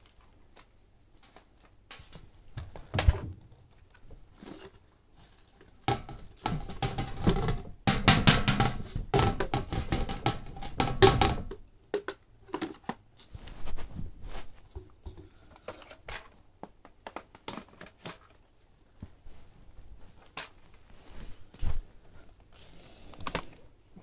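Intermittent rustling and scraping with scattered knocks and clicks, densest and loudest from about six to eleven seconds in. There is no steady motor sound.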